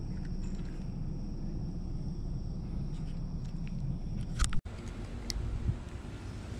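Steady low background rumble with a faint, thin, steady high hum. A few sharp handling clicks come about four and a half seconds in, where the sound briefly cuts out, and the high hum is gone afterwards.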